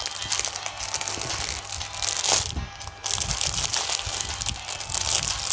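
Clear plastic packaging bag crinkling and crackling as it is handled, a dense run of rustles with a short lull about halfway through.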